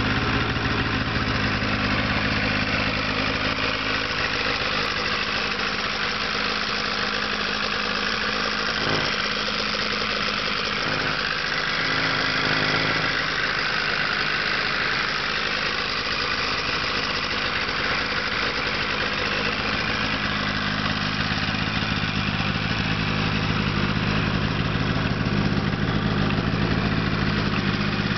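2002 Polaris Edge X 700 snowmobile's two-stroke twin engine idling steadily, its note shifting briefly a couple of times near the middle. It is running with a weird sound that the owner cannot place.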